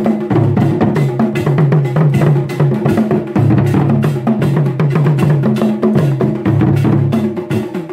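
Ghanaian traditional drum ensemble playing a busy, steady rhythm: a pair of tall standing drums beaten with curved sticks together with a set of small barrel drums.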